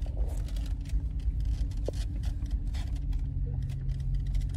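Vehicle engine running and tyres rolling slowly, heard from inside the cab as a steady low rumble, with scattered short clicks and crackles.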